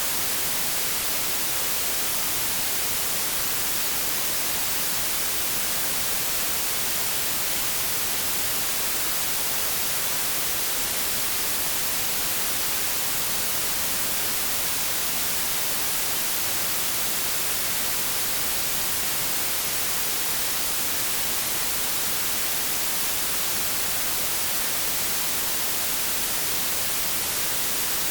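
Steady white noise: an even hiss that does not change.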